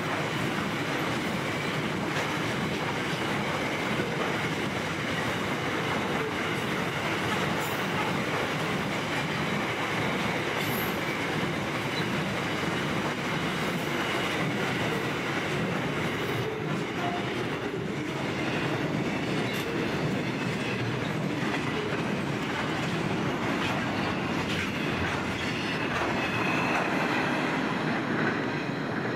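Loaded freight wagons of a long steel train rolling past on the rails, a steady rumble and clatter of wheels, with a faint high ring from the wheels on the rail.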